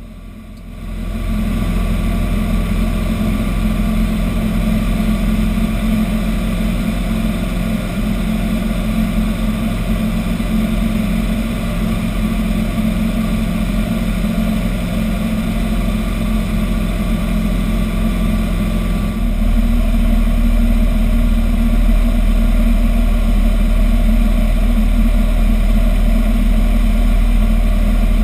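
Robin DR400 light aircraft's piston engine and propeller droning steadily in flight, heard inside the cockpit. It fades in about a second in, and about two-thirds through the drone turns deeper and slightly louder.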